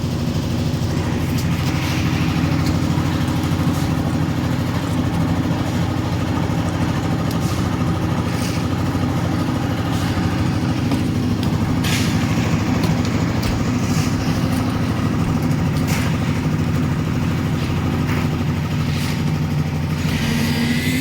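Construction machine engine running steadily at a constant speed, with scattered light clicks and knocks over it.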